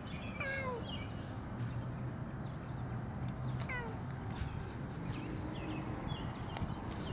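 Domestic cat meowing twice from inside a pet stroller, each meow falling in pitch, over a steady low rumble of the stroller rolling along a paved path.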